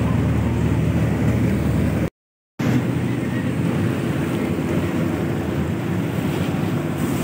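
Motorboat engine humming steadily under a wash of water rushing past the hull and wind on the microphone. The sound drops out completely for about half a second, two seconds in, then carries on the same.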